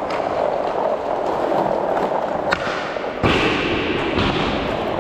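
Roller hockey skate wheels rolling and scraping on interlocking plastic rink tiles, with a sharp click about two and a half seconds in and a heavy thump a little after three seconds.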